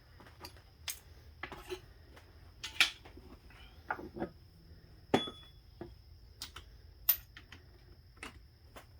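Metal transmission parts and hand tools being picked up and set down on a workbench: scattered clinks and knocks, the sharpest about three and five seconds in.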